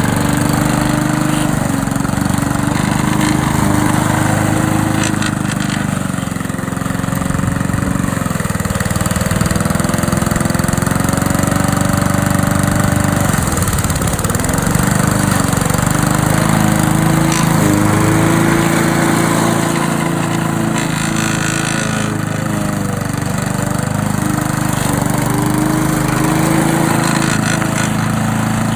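Petrol lawn mower engine running steadily, its pitch wavering and dipping briefly about halfway through before picking back up.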